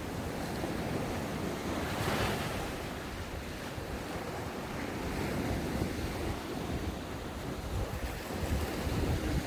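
Ocean waves breaking and washing onto the shore, one surging more loudly about two seconds in.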